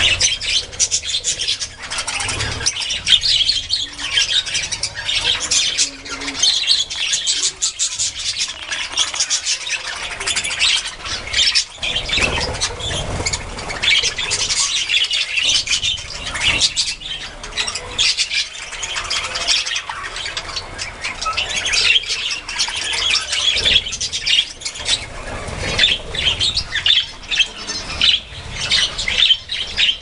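A flock of budgerigars chattering and chirping, many short calls overlapping without a break.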